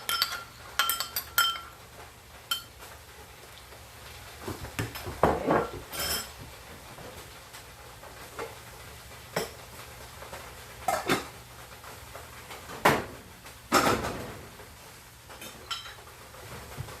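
A spoon knocking and scraping against a mixing bowl while stirring moi moi batter: irregular clinks and knocks a few seconds apart, with a short ringing tone in the first two seconds.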